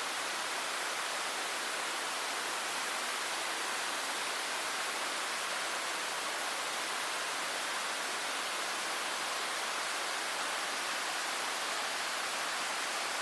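Steady rushing of water at Fukiware Falls, an even, unbroken roar with little bass.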